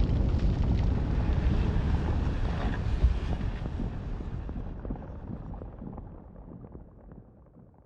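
The rumbling tail of a bomb explosion sound effect: a deep rumble with scattered crackles that dies away steadily over several seconds.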